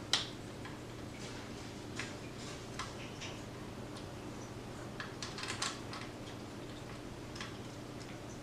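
Light, irregular metal clicks and ticks of an Allen wrench tightening screws on a metal bike repair stand, over a steady low hum.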